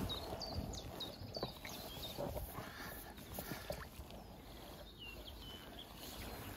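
Faint water sounds as a hooked carp is drawn over a landing net and the net is lifted out of the water near the end. A bird chirps in short falling notes in the background, in the first second or so and again near the end.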